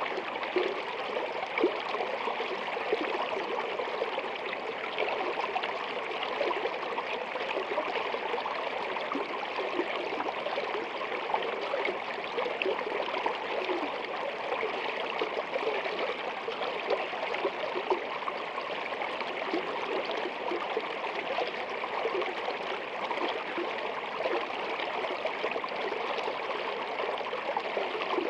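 Running water under ice: a stream flowing and trickling steadily beneath an ice sheet, with small gurgles and splashes throughout.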